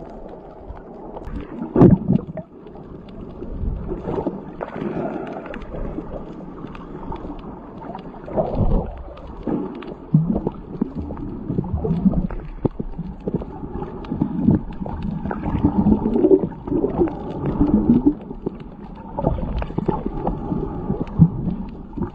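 Muffled underwater noise picked up by a submerged camera: water gurgling and sloshing irregularly, with a few louder knocks.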